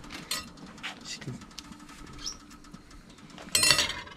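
Hands squeezing and twisting a cut lemon that will not juice: scattered small clicks and squelches, with a short loud rustle about three and a half seconds in.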